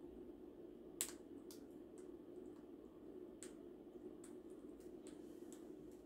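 Faint scattered sharp clicks and taps from caged parrots, one louder click about a second in, over a low steady hum.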